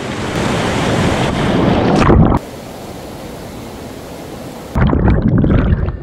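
Fast-flowing stream water rushing and splashing close to the microphone; about two seconds in it cuts abruptly to a steadier, quieter hiss, and near the end the loud rushing and splashing comes back.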